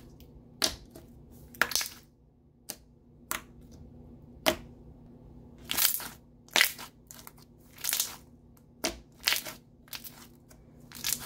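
Hands squishing and squeezing a thick, glossy milk-style slime, giving a dozen or so sharp, irregular pops and crackles, about one a second.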